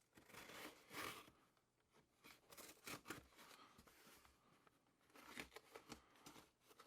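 Shipping bag being torn open and crinkled, in several short rustling bursts.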